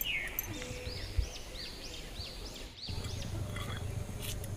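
A bird calling in a quick run of repeated arching chirps, about two or three a second. The run stops about three seconds in, leaving a low outdoor rumble.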